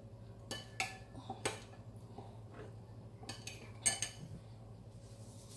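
A metal spoon clinking and tapping against a ceramic bowl while tomato sauce is spooned out: a few light, scattered clinks, the sharpest about four seconds in.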